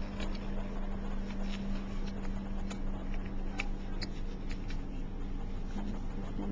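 Infant car seat harness straps and buckle being handled: scattered light clicks and rustling over a steady low hum.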